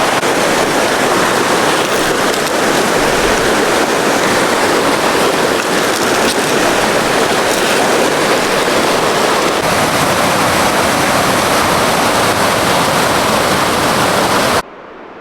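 Heavy thunderstorm rain pouring steadily onto a shelter roof, a loud, even hiss and patter that cuts off suddenly near the end.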